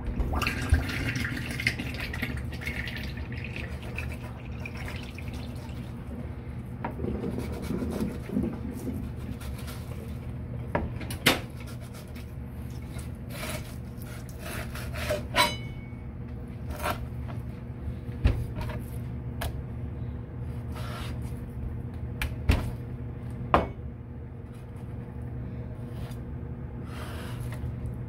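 Scattered knocks and clicks of a fish being cut up on a cutting board over a steady low hum, with water trickling in the first few seconds.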